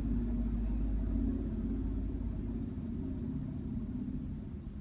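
Steady low engine rumble with a hum. The deepest part of the rumble drops away a little past halfway.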